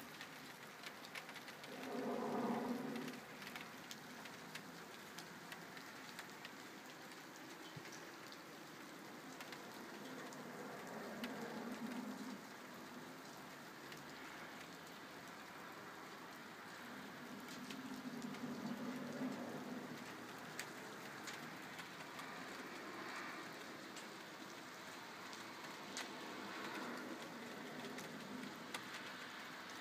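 Steady rain with an unexplained low hum that swells and fades several times, loudest about two seconds in. Its origin could not be told, whether from above or below.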